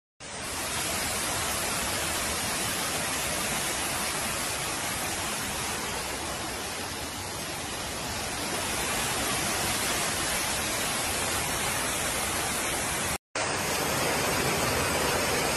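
Floodwater rushing into an underground train station, pouring through the entrance doors and across the platform floor in a steady, dense rush. It cuts out for a moment near the end and then resumes.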